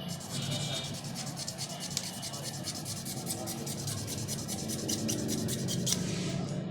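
Hand polishing on a Casio watch to remove scratches: quick back-and-forth rubbing strokes, about six a second, that stop shortly before the end.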